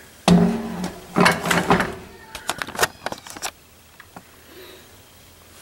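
Kitchen handling clatter at an open electric pressure cooker's stainless pot: a sudden knock with a ringing scrape lasting about a second and a half, then a quick run of lighter clicks and taps.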